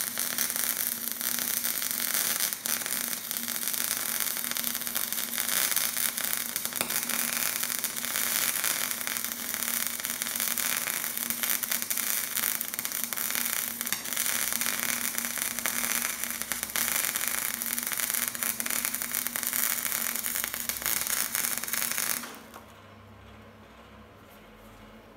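Gasless flux-cored wire MIG welding: a steady, dense arc crackle and sizzle as a fillet bead is run. It stops about 22 seconds in, leaving only a faint low hum.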